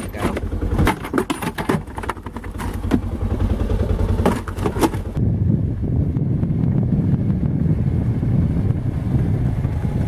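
Knocks and rattles over a steady low engine idle, then a Polaris side-by-side utility vehicle driving through snow toward the listener, its engine running steadily.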